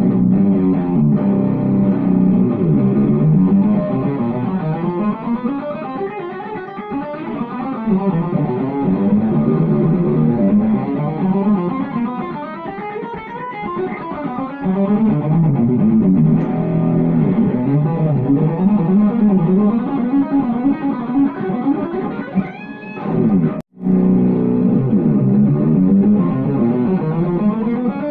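Electric guitar soloing over a jazzy D major backing track. Near the end a note glides upward, and then the sound cuts out for a split second before the music resumes.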